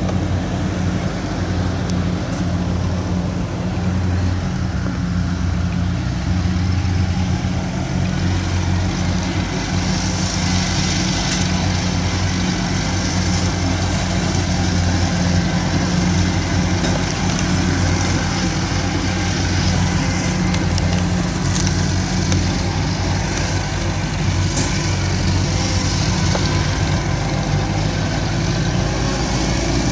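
Engine of a small rice-hauling tractor running steadily with a low hum while it hauls a heavy load of rice sacks.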